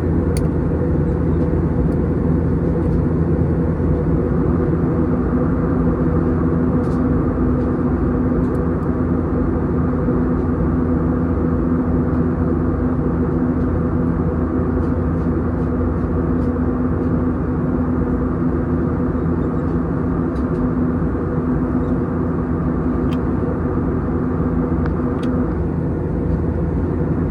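Airbus A321's IAE V2500 jet engines running at steady power, heard as a loud, even cabin drone with a steady hum under it.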